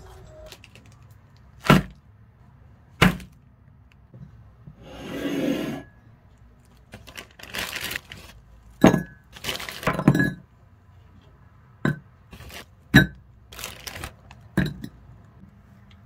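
Kitchen handling sounds: sharp separate knocks and clinks of utensils and dishes, some in short clattering clusters. About five seconds in comes a rush of noise that swells for a second or so and stops.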